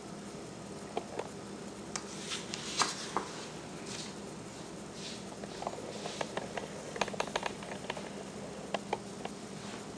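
Pages of a picture book being turned and handled: soft paper rustles and scattered light taps and clicks, over a faint steady hum.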